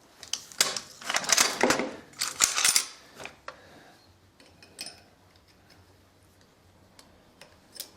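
Small metal parts and tools being handled: a run of rattling and scraping clinks in the first few seconds, then a few scattered single clicks, as oil-line fittings for the milling head are worked on.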